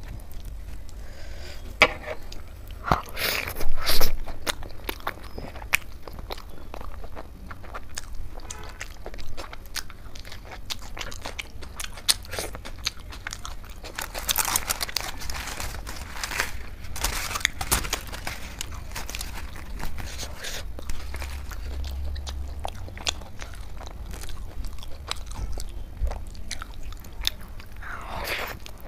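Close-miked chewing and wet mouth clicks of a person eating flatbread, with soft rotis torn apart by hand between bites.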